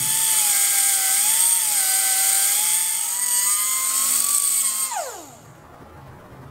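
Hand-held grinder grinding metal off the transfer case cable mounting bracket to clear the driveshaft: a loud, steady hiss over a wavering motor whine. About five seconds in it is switched off and the whine falls in pitch as it spins down.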